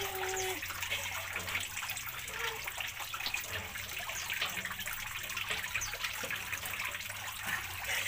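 Water trickling steadily.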